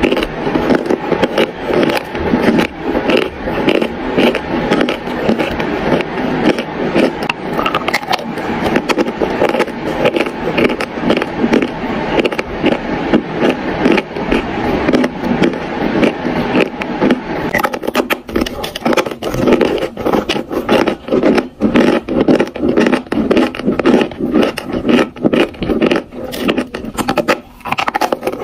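Close-miked chewing of a bitten-off chunk of dry white chalk: dense, gritty crunching and grinding between the teeth. About two-thirds of the way in, the crunches become sparser and more distinct.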